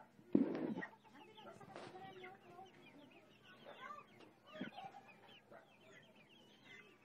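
A brood of young chicks peeping, a steady chorus of many short, high overlapping chirps. A brief muffled thump sounds about half a second in.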